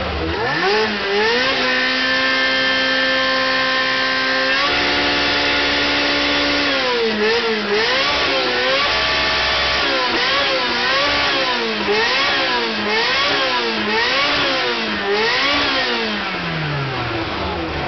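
Ferrari Spider's engine being revved: it climbs and holds high revs for a couple of seconds, drops to a lower held rev, then is blipped up and down about once a second, falling away near the end.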